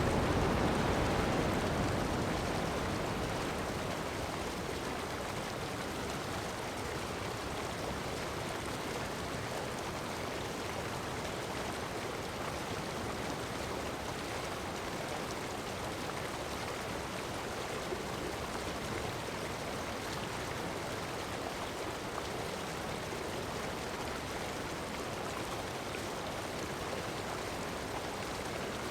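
Surf washing on sand, fading over the first few seconds, then a steady hiss of heavy rain with the sea behind it.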